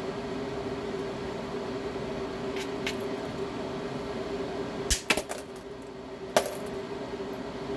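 Hammerstone striking a stone held for knapping, percussion flaking: two faint clicks near three seconds in, then three sharp knocks in quick succession about five seconds in and one more about a second later. A steady low hum runs underneath.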